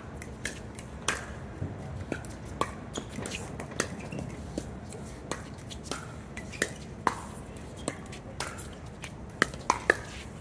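Pickleball paddles striking the hollow plastic ball in a rally, sharp pops about one or two a second, with a quick run of louder hits near the end.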